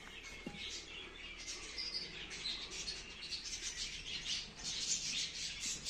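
Small birds chirping in short, high calls. In the second half, a dry rustling comes in as a bundle of seedlings is handled.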